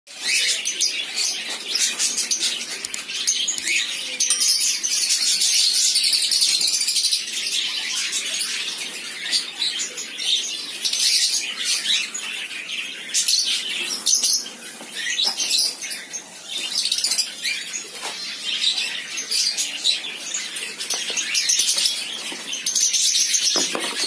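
A flock of caged cockatiels and other pet parrots chattering and chirping together in a dense, high-pitched, continuous chorus.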